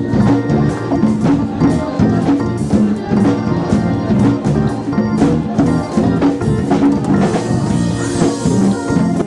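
Band music with a drum kit keeping a steady beat and an electric bass guitar playing underneath.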